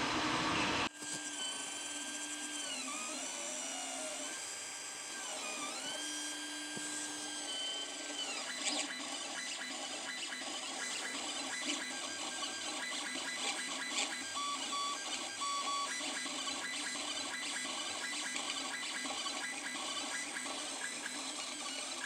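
Stepper motors of a pen plotter drawing with a Sharpie marker on copper clad board. The motors whine, gliding up and down in pitch through the early long moves, then run in many short stop-start moves with light ticks as the marker dots in pads.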